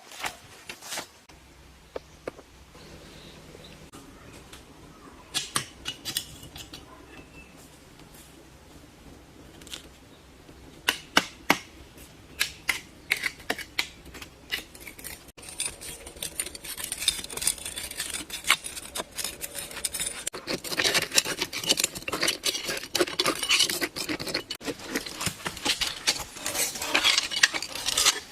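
Repeated clinks, taps and scraping of hard objects being handled. They come sparsely at first, then turn into a busy, continuous run about two-thirds of the way in.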